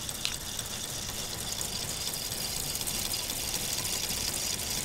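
K'nex model V8 engine running, driven by its electric motor: a steady whirring noise of the turning plastic crankshaft, rods and pistons.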